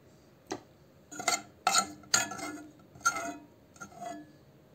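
Metal pots and kitchen utensils knocking together: about six separate clanks spread over a few seconds, several of them ringing briefly.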